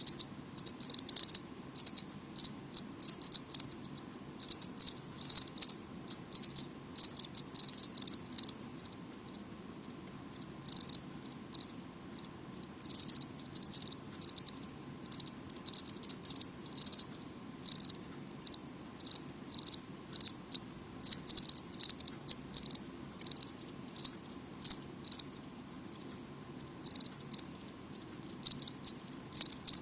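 House cricket (Acheta domesticus) chirping loudly: a male stridulating with its wings, giving runs of short, high, sharp chirps several a second, broken by pauses of a second or two.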